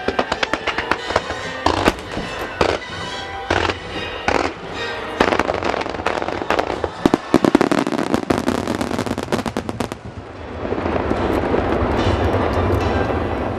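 Fireworks display: rapid sharp cracks and pops of bursting shells over music played along with the show. About ten seconds in, this thickens into a dense continuous crackle with a low rumble.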